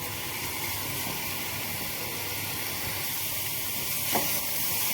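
A pan of cooked onion-tomato masala sizzling steadily, the oil having separated from the fried masala. One light tap about four seconds in.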